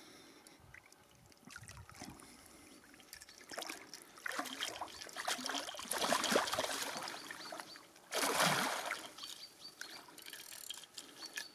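A large hooked pike thrashing at the surface beside the boat, splashing the water in irregular bursts, the loudest about six seconds in and another about eight seconds in.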